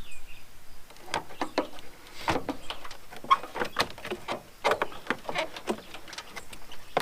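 Plastic engine-bay cowling being worked loose by hand: a run of irregular plastic clicks, creaks and snaps.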